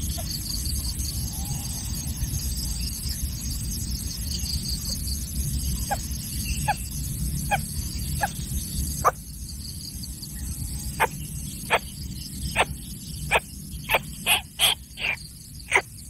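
Steady high insect drone over a low rumble, then from about nine seconds a series of short sharp animal clicks, coming faster toward the end.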